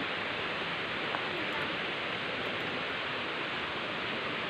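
Steady rushing of a rocky river flowing over stones, an even hiss that does not let up, with one small click about a second in.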